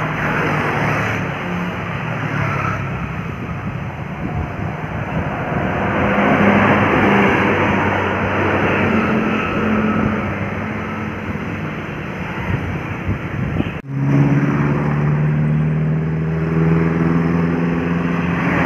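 Road traffic going by, with large bus engines running past. About 14 seconds in the sound cuts out for a moment, then a steady engine drone follows.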